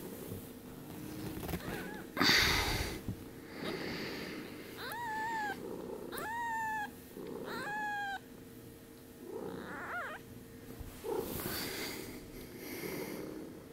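Week-old kittens mewing: three thin, high cries, each about half a second long and a little over a second apart, with a shorter call later. Before them there is a loud rustle of the kittens being handled on a bedspread.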